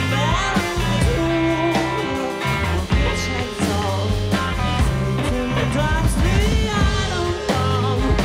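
A rock band playing live: electric guitars over a bass line, with drums and cymbals, and a singer's voice gliding over the top.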